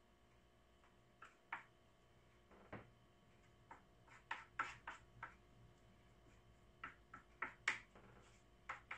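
Faint, scattered clicks and taps of kitchen utensils and containers being handled on a counter, irregular, with the sharpest knocks about halfway through and near the end.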